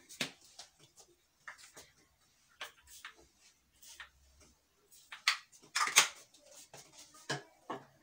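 Fragrance body-mist spray bottle spritzed a few times, short hissing sprays, the longest about six seconds in, with light clicks and taps of bottles being handled.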